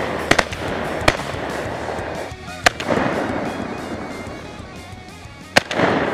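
Shotgun firing several times: sharp reports, the loudest about two and a half seconds in and another near the end, each trailing off in a rolling echo, over background music.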